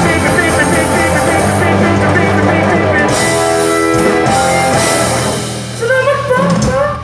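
Live rock band playing with electric guitar, bass and drum kit. About five and a half seconds in the full band sound thins out, leaving short swooping pitched sounds that rise and fall.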